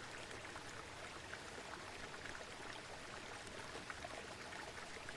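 Steady flowing water with faint scattered droplet sounds, like a stream or waterfall ambience.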